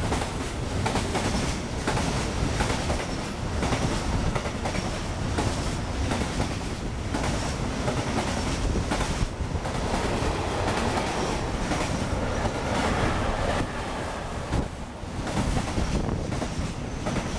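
Freight train carrying lorry semi-trailers on its wagons passing close by at speed: a steady loud rumble and rattle of the wagons, with the rhythmic clatter of wheels clicking over the rail joints.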